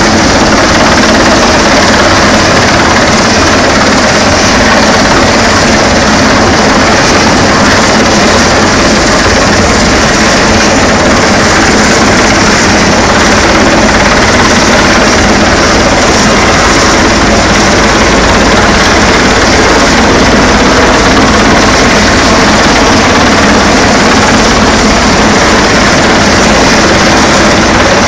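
Irish Coast Guard search-and-rescue helicopter hovering close overhead: a loud, steady din of rotor and engine noise that does not let up.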